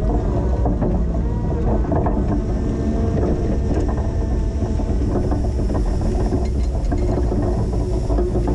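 Linde H20 forklift running steadily while plowing snow: engine noise with a faint wavering whine and scattered rattling clicks from the machine.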